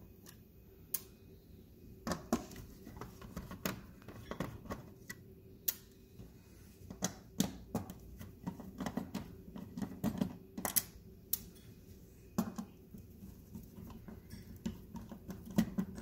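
Phillips screwdriver backing out the main board's mounting screws from a TV's sheet-metal back panel: irregular small clicks and light metallic clinks of the driver tip and screws, some in quick clusters.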